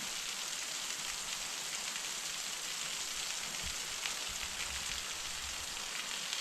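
Waterfall splashing: a steady, even hiss of falling water.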